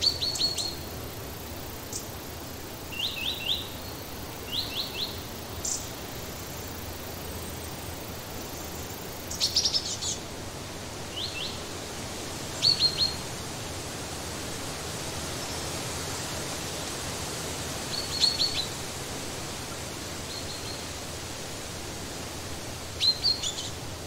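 Short, high chip calls from small songbirds, coming in quick clusters of three or four notes about every few seconds, over a steady background hiss.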